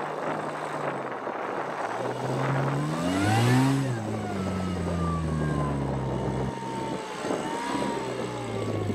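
Rock-crawling buggy's engine pulling it up a steep rock face: it revs up to a peak about three and a half seconds in, then falls back and runs steadily under load.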